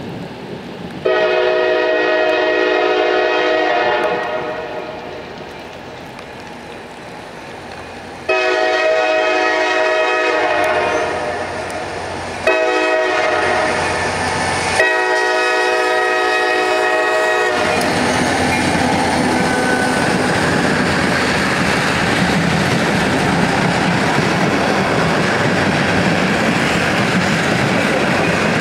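Locomotive horn of a CSX SD50-2 sounding the grade-crossing signal, long, long, short, long, as the train approaches. The locomotive and a string of empty ethanol tank cars then roll past with a steady rush of wheel and rail noise.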